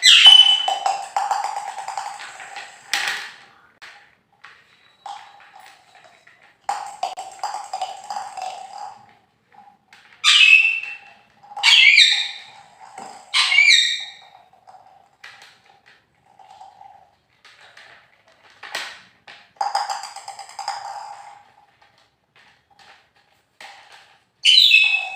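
A pet parrot squawks several short, loud calls, with quieter taps and rattling in between.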